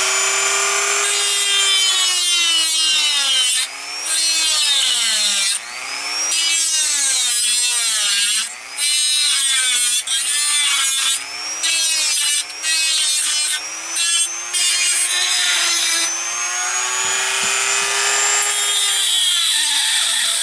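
Handheld rotary tool grinding into the plastic shell of a Nerf blaster. The motor runs loudly, and its pitch sags again and again as the bit bites in under load and recovers as it eases off, with a few brief breaks.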